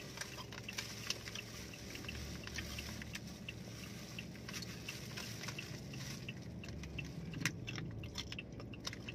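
People biting and chewing slices of unripe mango, with many small irregular mouth clicks, over a low steady hum.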